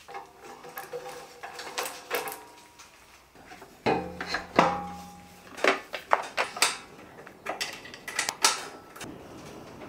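Metal parts and hand tools clinking and knocking against a steel cart frame and engine during assembly: a scatter of sharp clinks, with a louder clank a little under four seconds in and another about half a second later that rings briefly.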